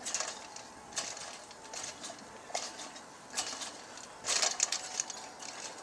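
Kick scooter and trampoline springs rattling and clanking as the scooter is bounced on a trampoline, a short metallic clatter about once a second.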